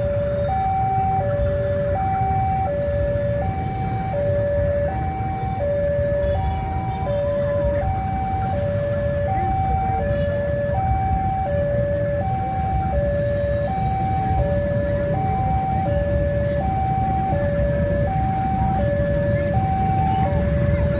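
Railway level crossing warning alarm sounding a repeating two-tone signal, a higher and a lower tone alternating about once a second each pair, warning that a train is approaching. A low steady rumble sits underneath from the approaching diesel locomotive.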